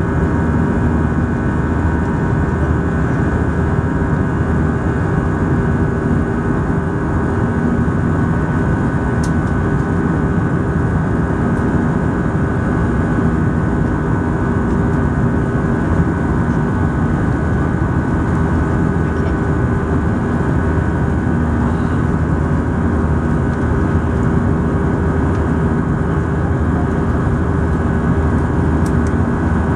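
Steady cabin drone of an Airbus A320-214 in flight, heard from a window seat beside the wing: the hum of its CFM56-5B turbofan engines, with a few steady tones over the even rush of airflow.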